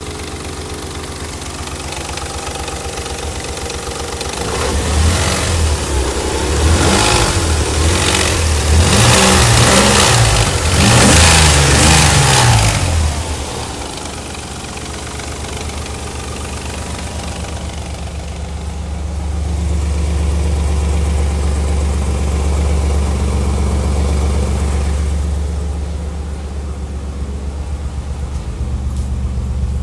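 Nissan 300ZX V6 exhaust idling, blipped several times in quick succession a few seconds in, then settling back to idle with a gentler, held rise later on. It carries the popping the owner suspects is an exhaust leak or failing catalytic converters.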